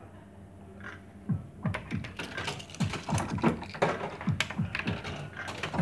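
Lady Luck Around the Clock fruit machine's reels spinning: after a quieter first second, a rapid clatter of clicks and short thunks from the reel mechanism and the machine's sound effects.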